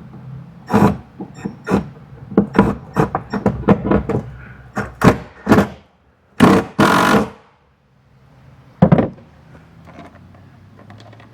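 Hand-fitting bolts and a metal strap mount into a pickup bed: a run of small clicks and knocks, two louder scraping rushes a little past the middle, and one sharp knock later.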